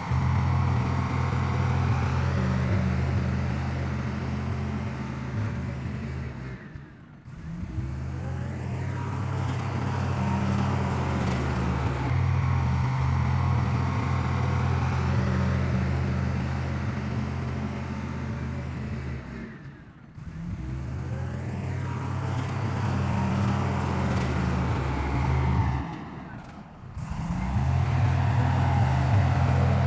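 Heavy diesel engine of earthmoving machinery running steadily with a deep, low drone. It fades out briefly three times.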